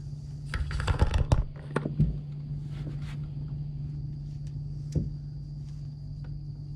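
Plastic Rubik's cube being twisted: a quick run of clicking, scraping turns about a second in, then single clicks near two and five seconds.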